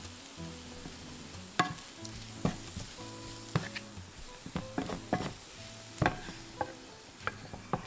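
Julienned potatoes and carrots sizzling in oil in a frying pan while a wooden spatula stirs them, scraping and knocking against the pan at irregular moments.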